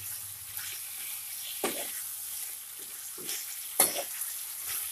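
Chopped onion, tomato, brinjal and radish sizzling in hot oil in a kadhai while a ladle stirs them, with a steady hiss and the ladle knocking sharply against the pan twice, about a second and a half in and again near four seconds.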